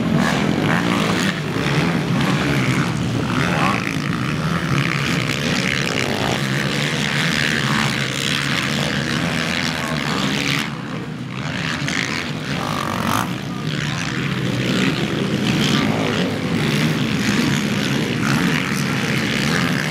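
Racing quad bikes' engines revving hard as they run over the track's jumps, the note rising and falling with the throttle. The sound drops briefly about eleven seconds in.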